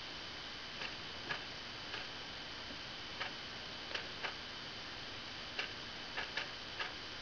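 Vetinari clock (a wall clock with a modified quartz movement) ticking at deliberately irregular intervals: about ten ticks, some bunched close together, others separated by gaps of over a second. The uneven rhythm is by design, and the clock still keeps accurate time.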